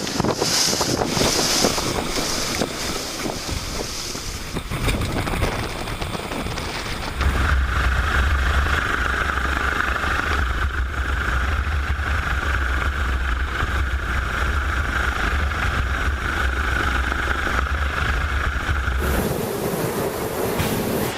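Storm wind and heavy sea noise around a ship, with wind buffeting the microphone. The sound changes abruptly a few times. For about twelve seconds in the middle, a steady whistling tone runs over a deep rumble.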